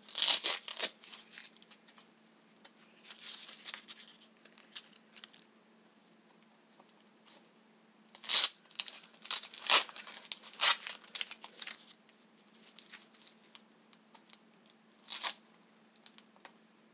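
Plastic card packaging being pulled and torn open by hand, crinkling and ripping in irregular bursts with pauses between, the busiest stretch from about 8 to 11 seconds in.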